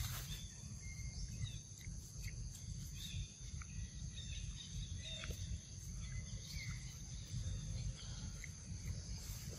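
Quiet outdoor ambience: a steady low rumble with a thin steady high tone and faint, scattered short chirps.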